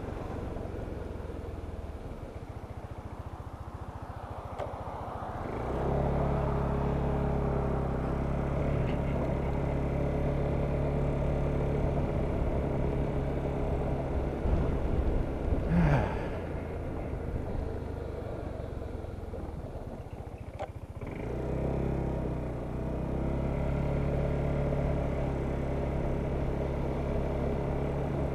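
2014 Kymco Downtown 300i maxi-scooter's single-cylinder engine pulling away about five seconds in and then running at a steady drone. About halfway it eases off with a falling note and a brief loud spike. About three quarters in it pulls away again and settles back into a steady drone.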